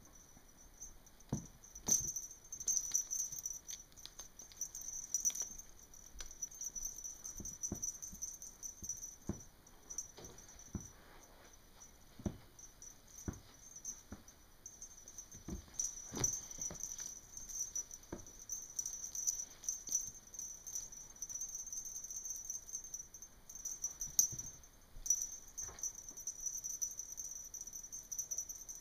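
Kittens pouncing and scampering on carpet while a feather wand toy is flicked and dragged around them: scattered soft thumps, patters and rattles at irregular intervals.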